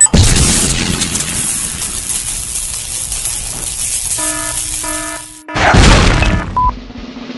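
Edited intro sound effects: a sudden loud crash-like burst of noise that dies away over about five seconds, two short electronic tones, then a second noise burst and a short beep near the end.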